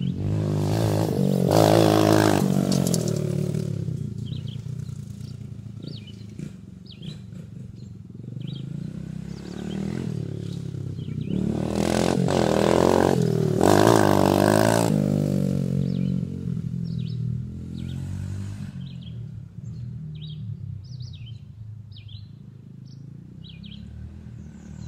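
Dirt bike engine revving as the bike rides past twice, loudest about two seconds in and again around twelve to fifteen seconds in, fading away between and after the passes.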